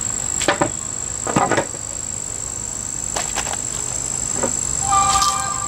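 Steady high-pitched drone of insects, with a handful of scattered knocks and clatters, the busiest just before the end.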